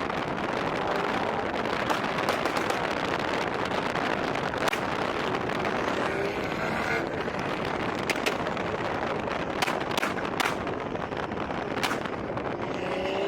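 Straight-piped BMW M235i's turbocharged N55 inline-six running hard, with no muffler or resonator. A loud, dense exhaust noise is broken throughout by sharp pops and cracks, with the revs climbing a couple of times.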